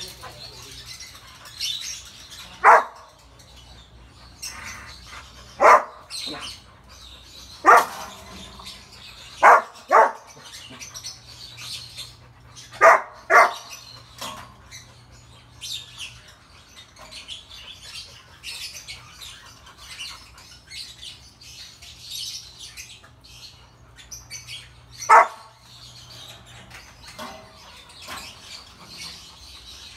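Rottweiler barking: eight short single barks, two of them coming in quick pairs, with a long gap before the last one near the end. Birds chirp faintly in the background.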